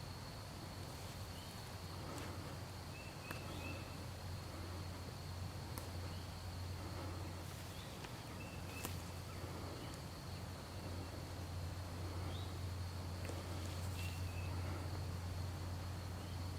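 Quiet outdoor spring ambience with no voices: a steady high-pitched insect-like tone, scattered short bird chirps and a low steady rumble.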